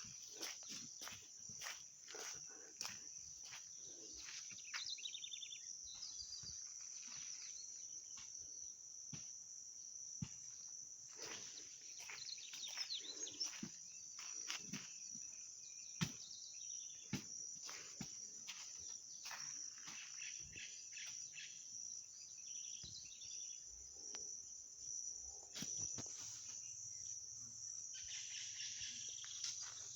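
Steady high-pitched chorus of insects, such as crickets, with scattered short bird chirps and frequent sharp clicks.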